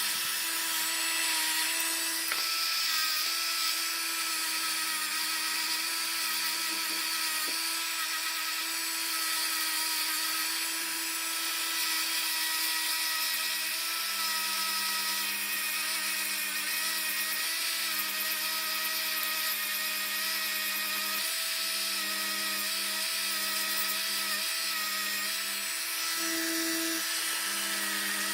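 Small high-speed electric rotary tool running steadily while polishing a bare die-cast metal car body, a constant motor whine with a hissing buff against the metal.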